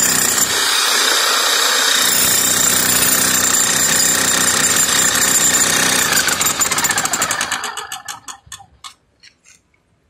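Corded electric demolition hammer chipping concrete, hammering rapidly and steadily with its chisel bit in the concrete. About seven seconds in, the blows thin out into separate strikes and stop.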